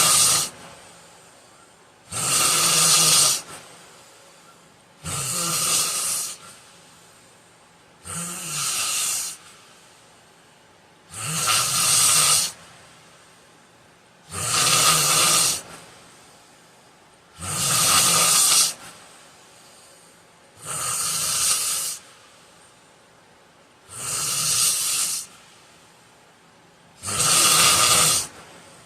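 A man snoring in his sleep: loud snores, each lasting over a second, in a steady rhythm of about one every three seconds, with quiet gaps between them.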